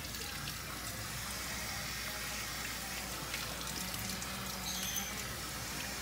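Steady spray of water from a kitchen faucet's pull-down sprayer running over a small dog's coat and into a stainless steel sink, rinsing out shampoo.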